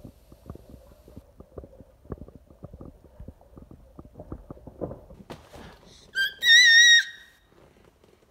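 A run of irregular soft knocks and taps, then about six seconds in a toddler's high-pitched squeal: a short one followed by a longer, slightly wavering one, the loudest sound here.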